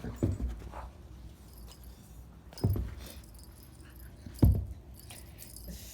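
A dog's collar tags jingling as it moves about, with three dull thumps, the last the loudest, a second or two apart.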